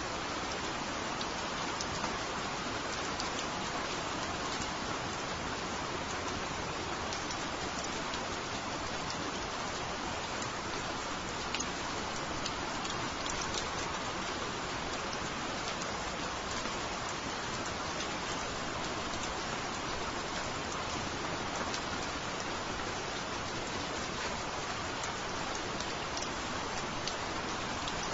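Steady rain falling, with scattered individual drops ticking.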